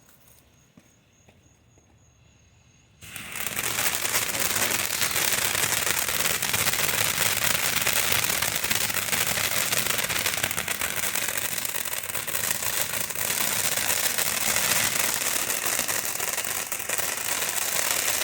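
Phantom Fireworks Funky Monkey fountain firework erupting suddenly about three seconds in, then spraying sparks with a steady hiss and a dense crackle.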